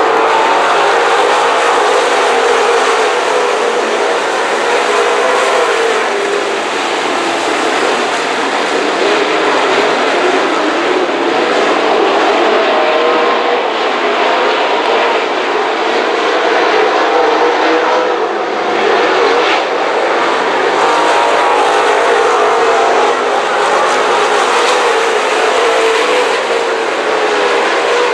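Engines of a field of dirt late model race cars running at racing speed in a pack, a loud, dense, steady engine din.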